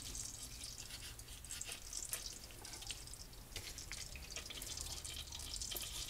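Kitchen knife slicing dried beef into strips on a wooden cutting board: faint, irregular light taps and scrapes, over a low steady hum.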